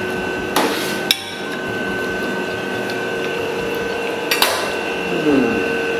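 Knife and fork cutting into a breaded cordon bleu on a plate, the cutlery clinking against the plate about three times, over a steady background of held tones.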